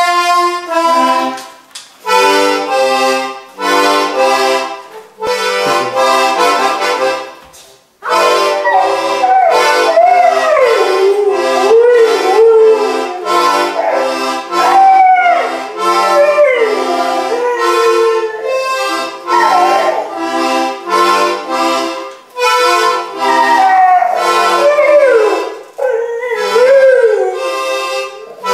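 Accordion playing chords, joined about eight seconds in by a chocolate Labrador howling along, its drawn-out howls sliding up and down in pitch over the music until the end.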